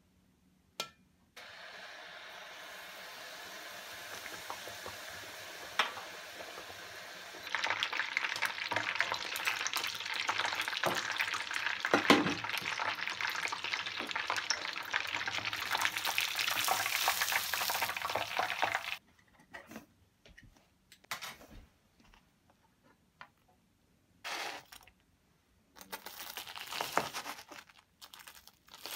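Panko-breaded chicken cutlet deep-frying in hot oil: a steady sizzle that turns louder and crackly about seven seconds in and stops a little past halfway. Then a knife crunches through the crisp fried crust in short, separate cuts.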